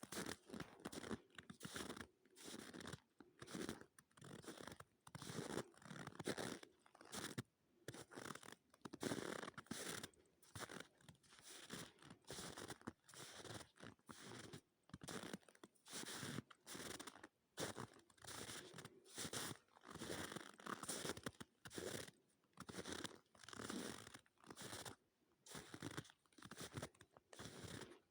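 Footsteps crunching and squeaking in dry, frozen snow at about minus 13 °C, in a steady walking rhythm of roughly two steps a second. The squeak is typical of snow in hard frost, below about minus 10 °C.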